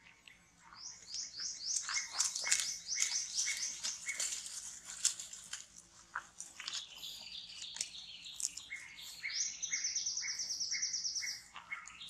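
Birds chirping: long runs of short, high, sweeping notes repeated several times a second, over a lower note repeated more slowly, with scattered light rustles and clicks.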